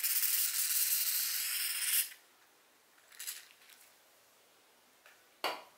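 Aerosol spray can hissing in one steady two-second burst that stops sharply, then a shorter, fainter spray about a second later. A sharp click with a brief rub comes near the end.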